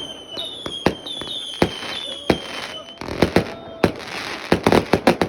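Multi-shot firework battery firing: shots with whistling tails that fall slightly in pitch, sharp bangs, and two bursts of rapid crackling, one about three seconds in and one near the end.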